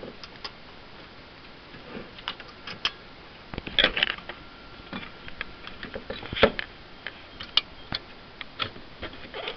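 Scattered clicks and knocks of computer parts being handled as the hard drive and its cables are worked loose inside an iMac G3, with louder knocks about four seconds in and again about six and a half seconds in.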